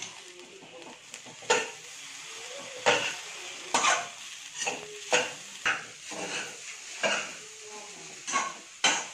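Metal spatula scraping and knocking against a metal kadai while stirring and tossing fried rice, with about a dozen irregular strikes, roughly one a second. A low sizzle of the rice frying runs beneath.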